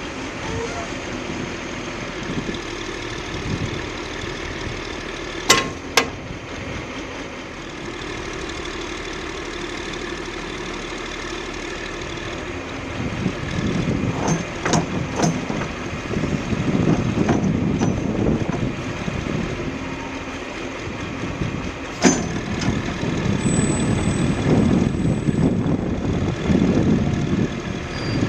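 John Deere 710D backhoe loader's diesel engine running steadily, with a few sharp metallic knocks, two close together early and one later. There are louder, rougher stretches of engine sound in the middle and toward the end.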